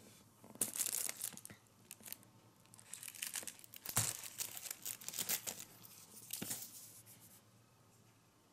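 Plastic shrink-wrap on packs of firecrackers crinkling and rustling as they are handled, in an irregular string of crackles that stops about seven seconds in.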